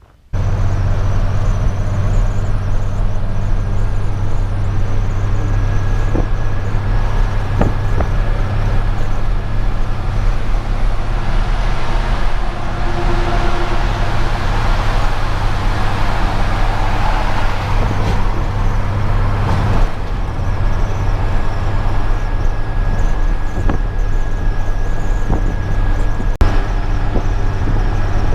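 A motor vehicle being driven: a steady low engine drone with road and tyre noise, which swells for several seconds in the middle.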